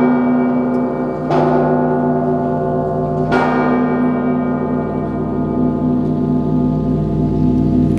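Large Russian Orthodox belfry bells being rung: a fresh clang about a second in and another two seconds later. After that the bells are left ringing on, a rich mix of sustained tones, with no further strikes.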